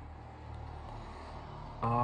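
Faint steady background noise with a low hum, then near the end a man's voice starts a held, sung note.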